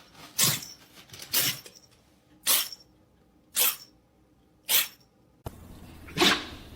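A pet sneezing in short, sharp bursts, five of them about a second apart. Near the end a steady low hum comes in behind it, and one more sneeze follows.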